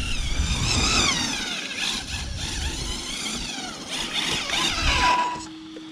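The ZD Racing Pirates 3 RC car's 1900 kV brushless electric motor whining, its pitch rising and falling again and again as the car speeds up and slows. A rough rushing noise from the tyres runs underneath.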